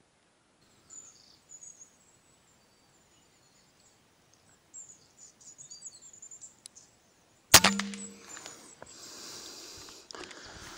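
Small birds chirping faintly, then about two-thirds of the way in a single sharp rifle shot with a brief metallic ring, followed by a couple of seconds of rustling hiss.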